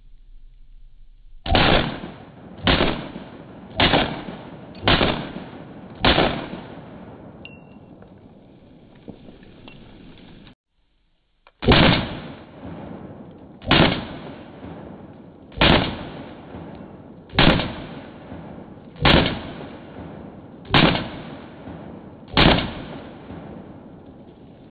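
Semi-automatic pistol fired in single shots: five shots about a second apart, then, after a short break, seven more about a second and a half apart, each shot trailing off briefly.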